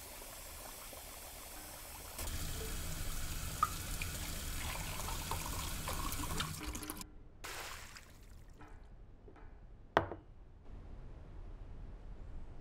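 Water from a kitchen tap running into a steel sink as something is rinsed under it; it starts about two seconds in and stops abruptly about seven seconds in. One sharp clack follows near ten seconds.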